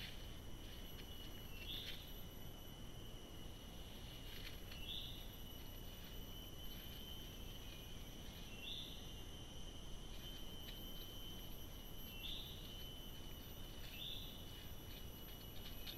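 Faint forest ambience: a steady high-pitched insect drone, with a short high call repeated five times at intervals of a few seconds and a few faint rustles.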